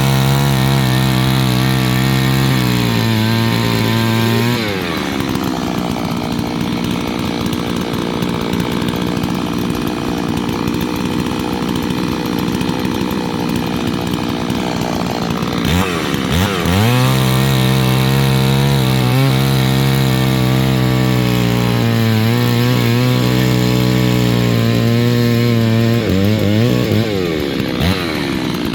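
Brand-new Holzfforma chainsaw being run in: held at high revs for a few seconds, dropping back to idle about five seconds in, then revved up again for about ten seconds before falling back to idle near the end.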